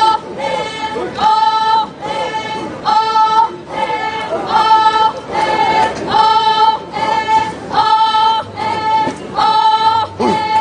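A chorus of voices singing a folk dance song in unison: a short held note, repeated in a steady rhythm about once a second.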